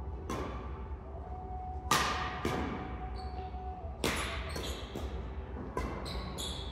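Badminton rackets striking a shuttlecock during a doubles rally, a series of sharp hits, the loudest about two and four seconds in, each ringing on in the echo of a large gymnasium.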